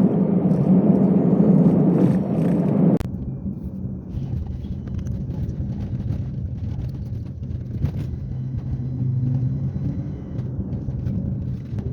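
Car engine and road noise heard from inside the cabin while driving: a steady low hum that drops suddenly about three seconds in, then a quieter low rumble.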